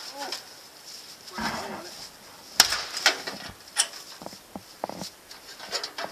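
A golf club hitting the metal casing of a junked microwave oven: a string of sharp hits, three loud ones about halfway through, then a few fainter knocks.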